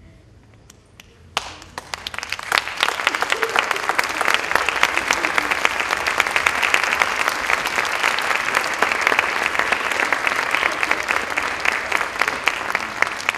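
Audience applauding: the clapping starts suddenly about a second and a half in, swells within a couple of seconds into dense, steady applause, and eases slightly near the end.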